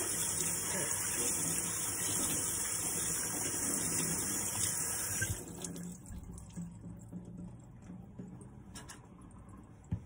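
Kitchen faucet running into a stainless steel sink while hands are rinsed under it, turned off about five seconds in.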